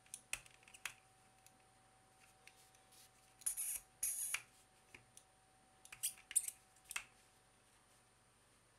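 Plastic segments of a Rubik's Snake puzzle twisted by hand, clicking as they turn: a few clicks at first, two longer, noisier twists about three and a half and four seconds in, then a quick cluster of clicks around six to seven seconds.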